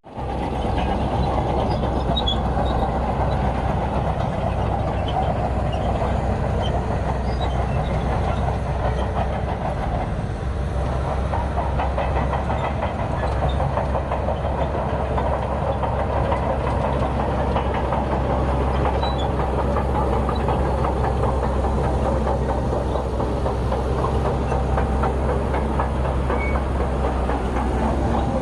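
Crawler bulldozer's diesel engine running steadily under load, with its steel tracks clanking and rattling without a break.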